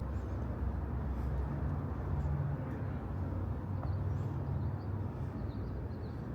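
Outdoor ambience: a steady low rumble of vehicle or traffic noise, with faint high chirps scattered through it.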